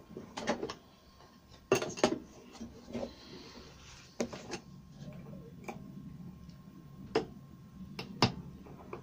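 Scattered clicks and light knocks of a router cutter and a router-table insert plate being handled by hand, about ten in all, with the loudest pair about two seconds in.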